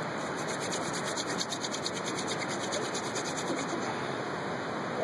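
Wooden hand-drill spindle spun fast between the palms, its tip grinding in the notched wooden hearth board: a steady dry rubbing with a quick, even pulse from the strokes. This is friction fire-lighting, building heat toward an ember.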